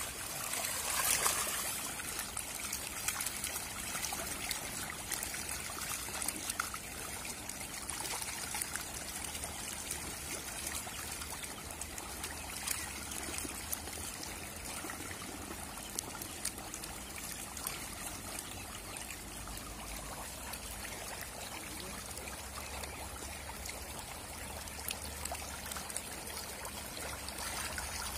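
A dense mass of hybrid magur catfish churning in shallow pond water: a steady patter of small splashes and trickling water, a little louder about a second in.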